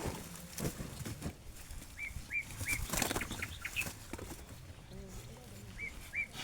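Short, high bird chirps in small runs of three or four, over rustling and a few sharp knocks.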